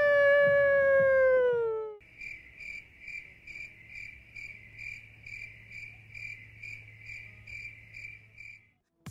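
A person's long held yell, its pitch sliding slowly down, cut off abruptly about two seconds in; then cricket chirping at a steady two and a half chirps a second, starting and stopping abruptly, an edited-in sound effect.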